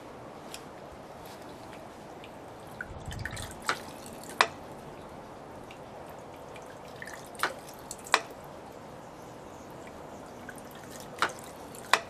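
Homemade bamboo shishi-odoshi (deer scarer) fountain working: a steady trickle of water pours from the spout, and about every four seconds the rocking bamboo tube tips and clacks, giving three pairs of sharp knocks, the second of each pair louder, as it strikes the stone used as the noise maker.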